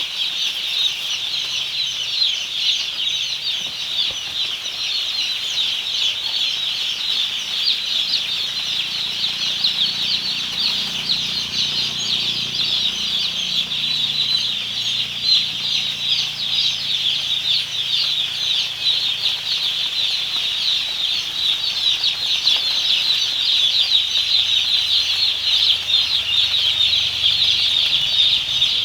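A large flock of broiler chicks peeping all at once: a dense, unbroken chorus of high chirps.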